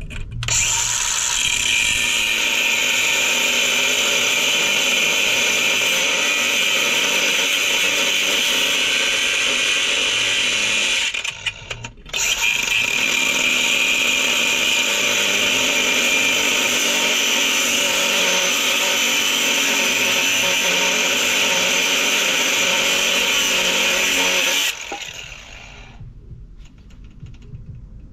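A handheld power tool running steadily at high speed while cutting into a steel flywheel. It stops briefly about 11 seconds in, starts again a second later, and cuts off about 25 seconds in.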